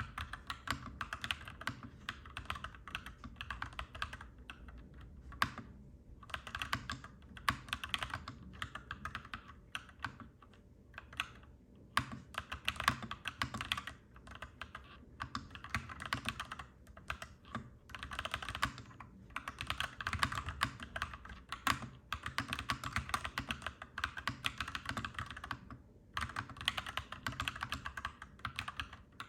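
Mechanical keyboard typing: clacky keystrokes in fast runs, broken by short pauses.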